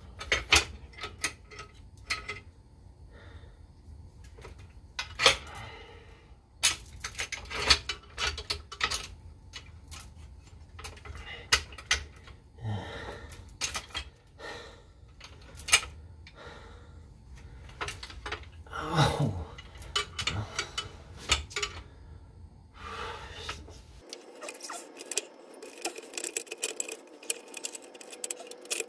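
Metal tools and parts clinking and knocking in a string of separate short strikes, as in mechanical work on a car. A steadier hiss with a faint hum comes in near the end.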